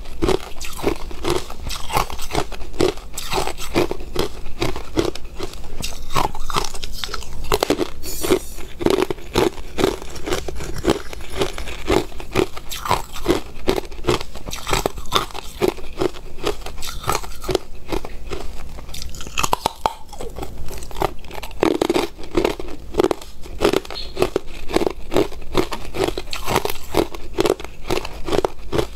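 Hard clear ice being bitten and chewed close to the microphone: a long run of sharp crunches and cracks in quick succession.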